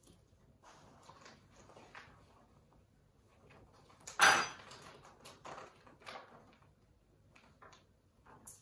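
Snack packaging being handled and rummaged through: soft crinkling and rustling of wrappers, with one sharp, loud noise about four seconds in.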